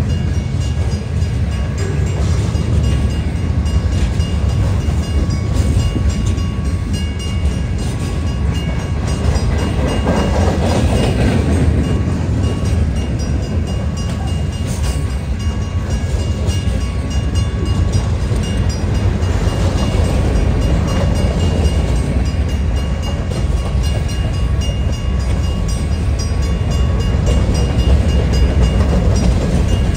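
A freight train's cars rolling past close by, steel coil cars, boxcars and tank cars on jointed track: a steady low rumble of wheels on rail with faint clickety-clack, swelling a little about ten seconds in.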